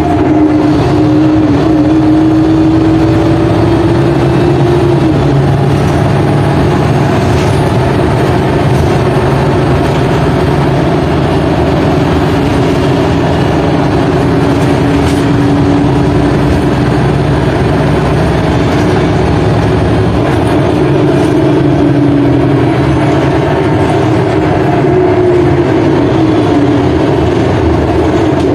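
Ikarus articulated bus's diesel engine and running gear heard from inside the passenger cabin while driving, a steady loud rumble. The engine note climbs for the first five seconds, drops, then climbs again twice later on as the bus pulls through its gears.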